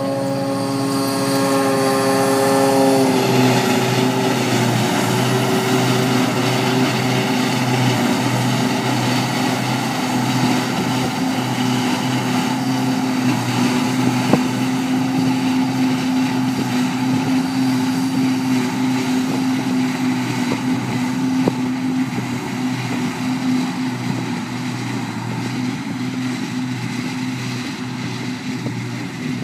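John Deere tractor engine running close by as it pulls a silage trailer away, its note dropping about three seconds in. After that comes the steady drone of the John Deere 6810 self-propelled forage harvester and tractor working together across the field.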